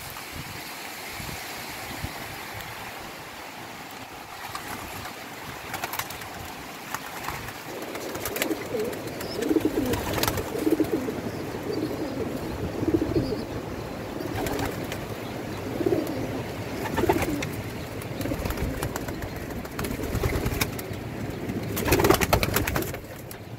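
Homing pigeons cooing over and over from about eight seconds in, with wing claps, the loudest a burst of wing flapping near the end. The first several seconds hold a steady wind hiss.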